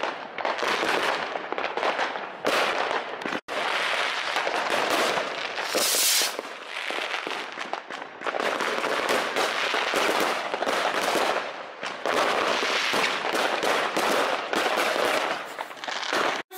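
Fireworks going off: a dense, continuous crackle of many bangs and firecracker pops at once, with a brief high hiss about six seconds in.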